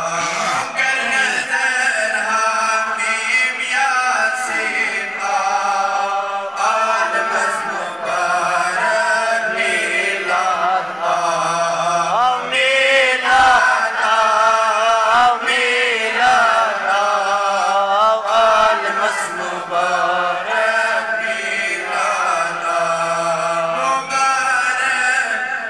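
A man singing a naat in a chanting, melismatic style, with long wavering held notes. A low held drone comes and goes beneath the voice.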